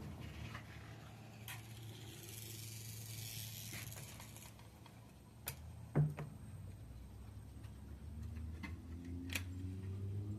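Axial SCX24 micro RC crawler running over rocky ground: its small electric motor and gears hum faintly under scattered ticks, with a knock about six seconds in and the motor pitch rising near the end.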